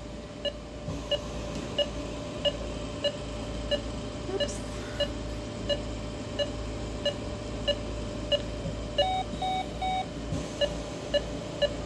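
Anaesthesia patient monitor beeping in time with the dog's pulse, short even beeps about three every two seconds. About nine seconds in, three quicker beeps of a different pitch sound from the monitor.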